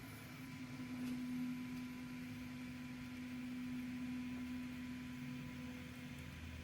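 Prusa Mini 3D printer's stepper motor running with a steady hum at one pitch as it moves the carriage, with a lower tone joining briefly near the end.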